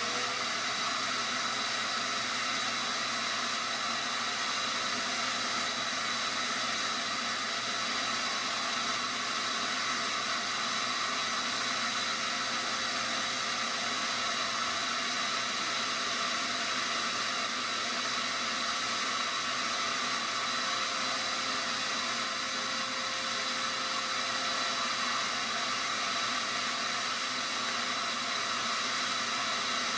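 Shop vacuum running steadily, sucking sawdust and wood debris out of a table saw's bottom tray.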